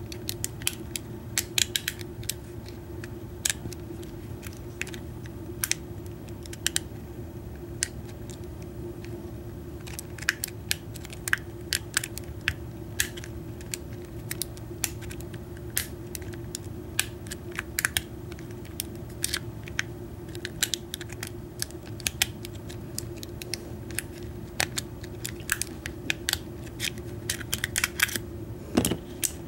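Irregular small metallic clicks and scrapes of a steel lock pick probing inside a wafer-lock ignition cylinder, trying to hook the retaining wafer at the back that holds the cylinder in its housing. A steady low hum runs underneath.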